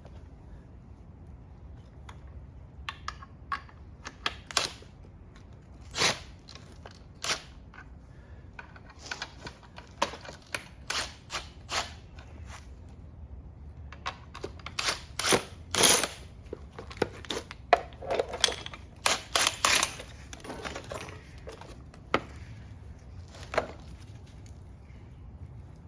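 Strut suspension parts handled on a workbench: a string of sharp metallic clicks and knocks as parts are picked up and set down. They are scattered at first and come thick and fast in the second half.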